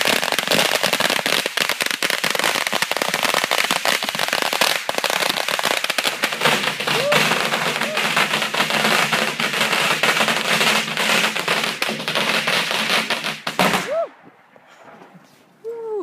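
A long string of firecrackers going off in a rapid, continuous crackle of loud bangs that stops abruptly about fourteen seconds in.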